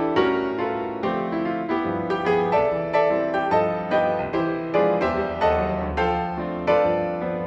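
Background piano music: notes struck in a steady, unhurried pulse of about two a second.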